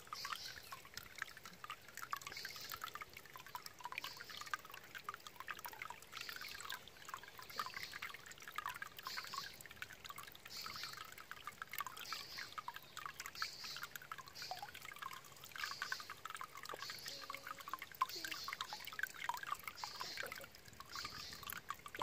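Water welling up from a hole in a rusty metal plate and spilling over it: a steady trickling and splashing that swells in regular surges a little over a second apart.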